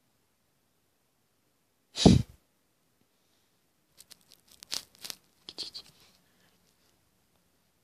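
A phone being handled as it is lowered to the carpet: one loud thump about two seconds in, then a few seconds of scratchy clicks and rustles.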